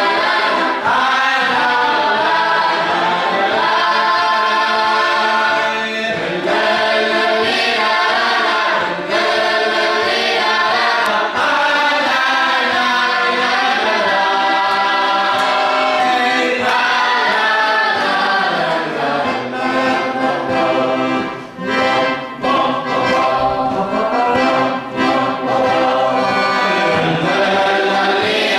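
Boys' choir singing a march tune together, with accordion accompaniment.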